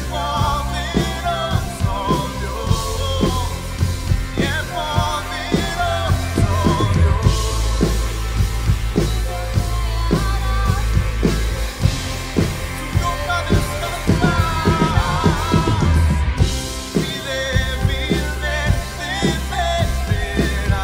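Live worship band playing a Spanish-language song: drum kit with cymbals, electric guitar and a low bass line under a lead singer. The low bass drops away for a few seconds past the middle, then returns.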